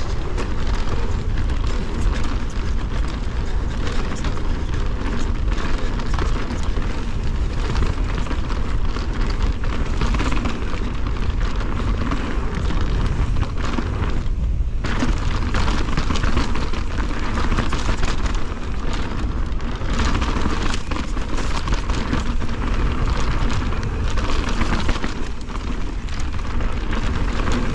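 Wind rushing over the microphone and a downhill mountain bike clattering over rough trail at speed: a steady, loud low rumble with constant rattling.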